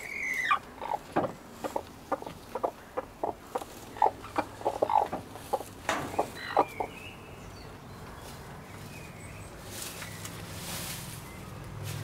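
Broody hen sitting on eggs clucking, a run of short 'gluck, gluck' clucks that dies away about seven seconds in. This is the typical clucking of a hen brooding her eggs.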